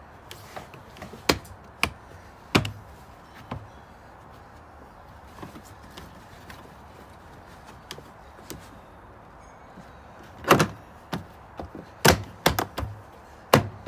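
Carpeted plastic side trim panel in a car's cargo area being pressed and knocked into place by hand: irregular sharp knocks and thumps, a few in the first four seconds, then a louder cluster near the end.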